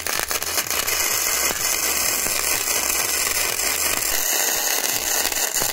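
Semi-automatic MIG welding arc of a 100 V EENOUR MIG120L welder running at about 80 amps, a steady, dense crackle of fine pops as a bead is laid.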